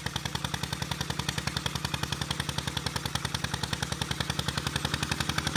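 The 11-horsepower single-cylinder diesel engine of a converted walk-behind tractor runs steadily under load while ploughing, chugging at about a dozen beats a second.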